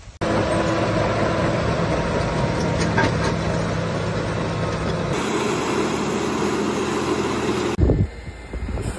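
Bulldozer's diesel engine running steadily as it works, cutting in suddenly at the start. Near the end it stops abruptly and gives way to a rushing, wind-like noise with a thump.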